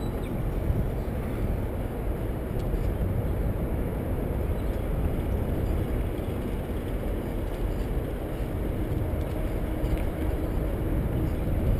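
Steady low rumble from a bicycle on the move: wind on the microphone and tyre noise, without clear single events.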